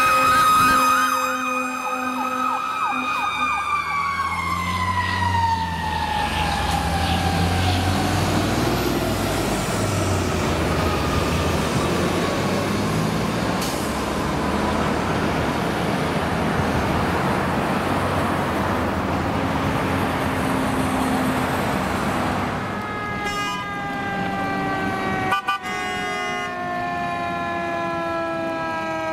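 Fire truck siren, steady at first and then falling in pitch over several seconds, over the rumble of the passing truck's engine. About two-thirds of the way through a second fire engine's siren comes in, again falling slowly in pitch.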